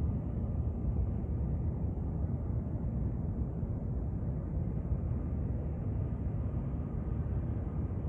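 Delta Boeing 757's jet engines running steadily, a low even rumble with no rise or fall, which the filmer guesses is an engine test.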